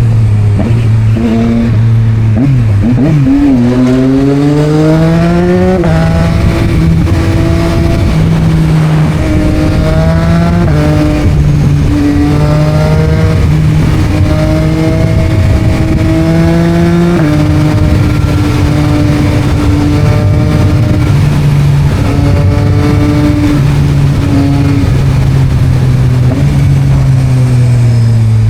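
Yamaha MT-09's three-cylinder engine through an Akrapovic exhaust, pulling up through the gears. The pitch rises and drops sharply at each of three shifts, then the engine holds a steady cruise, easing off slightly near the end.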